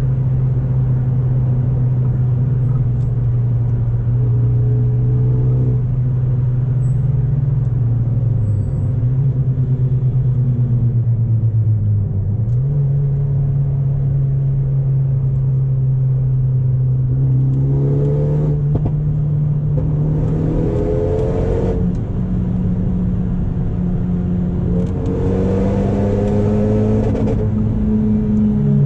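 Renault Megane RS's turbocharged four-cylinder engine through an Akrapovic exhaust, driving under load. The engine note holds steady, sinks around a third of the way in, then climbs in two pulls in the second half and drops at a gear change at the very end.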